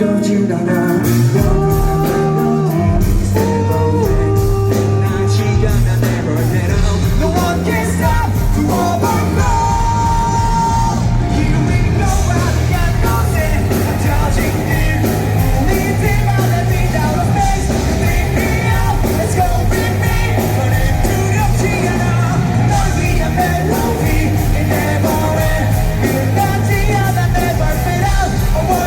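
Live rock band performance with male lead singing over drums, bass and guitar. The full band's low end kicks in about three seconds in after a lighter opening.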